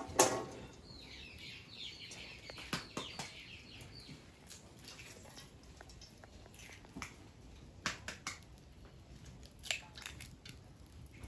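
Eggs tapped and cracked on the rim of a frying pan: a sharp knock just after the start, then a scattering of single taps and shell cracks. A bird chirps in the background from about a second in for a few seconds.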